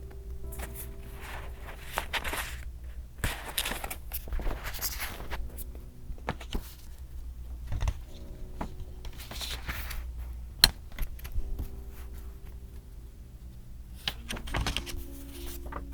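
Paper and journaling supplies being handled: paper rustling in short bursts with scattered light taps and clicks, one sharper click about ten seconds in.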